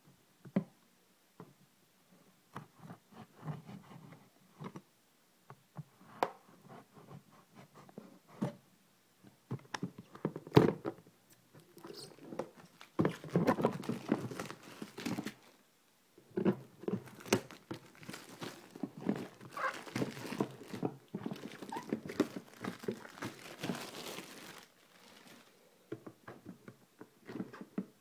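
A cardboard moisture-absorber box being handled and unpacked: irregular rustling and scraping of cardboard and plastic with scattered light knocks, busiest through the middle stretch.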